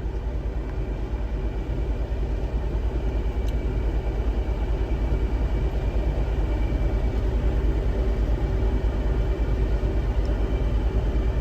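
Tata Zest four-cylinder petrol engine idling steadily with an even, regular beat: running smooth and stable on new spark plugs, its cylinder 4 misfire cured.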